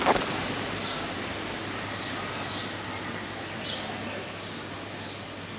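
A bird chirping about six times in short, high calls over a steady background hiss.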